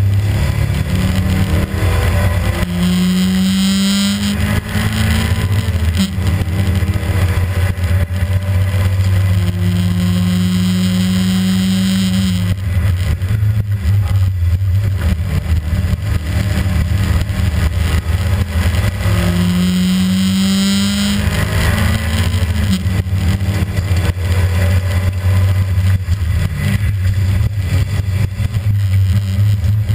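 Rally car's engine heard from inside the cabin at speed, rising in pitch under acceleration twice and dropping back between, with a steady engine drone underneath.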